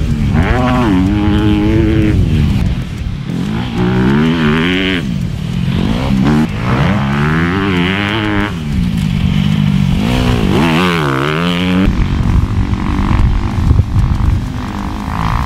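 A 2019 Honda CRF250R motocross bike's 250cc four-stroke engine being ridden hard. The revs climb and drop again and again with throttle and gear changes, about five rising and falling sweeps.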